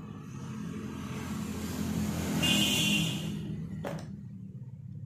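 A motor vehicle going past: its sound swells to a peak about halfway through and then fades, over a steady low hum. There is a sharp click near the end.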